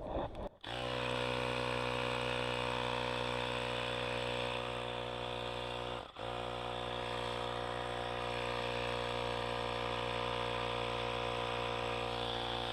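Ryobi handheld air compressor running steadily as it inflates a bicycle tire, with a brief stop about six seconds in before it starts again.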